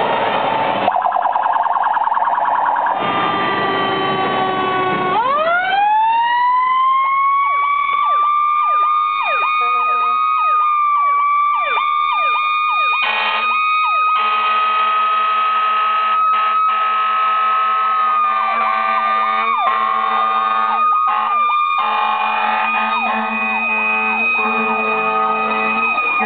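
Fire apparatus sirens. After a few seconds of truck engine noise, a siren winds up in pitch and holds a steady high wail, while another siren yelps with quick repeated dips in pitch. About halfway through, a low buzzing tone joins them.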